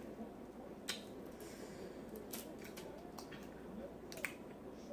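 Close-miked eating of a seafood boil: about half a dozen sharp, wet clicks spread out, as from smacking and shell handling, with a short soft squishy rustle about one and a half seconds in.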